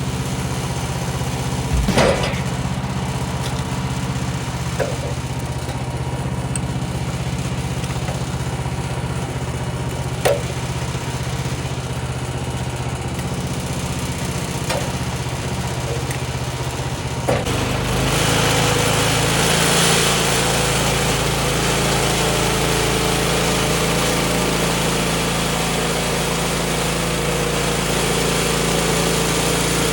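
The Kohler gas engine of a Woodland Mills HM126 portable bandsaw mill runs steadily, with a few sharp knocks. About two-thirds of the way in, the engine note changes and a steady hiss of the band blade cutting white oak joins it.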